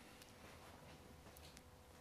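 Near silence: room tone with a faint steady hum and a few faint clicks.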